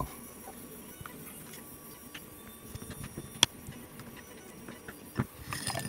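Small screwdriver backing the tiny screws out of the base of an old-style Max Flame butane torch: faint scraping with light ticks, and one sharp click about three and a half seconds in.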